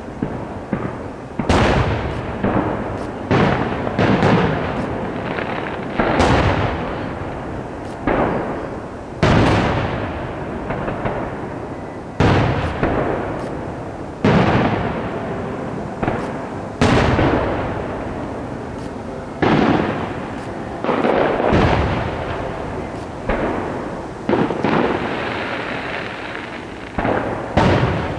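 Aerial firework shells bursting one after another, a sharp boom every second or two, each trailing off in a long echo, with smaller pops in between.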